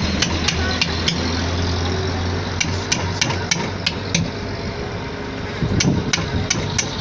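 Sharp knocks of a mallet striking the back of a cleaver-style knife as it is driven through a seer fish onto the chopping block to cut steaks. The knocks come about three a second in three short runs with pauses between, over a steady low hum.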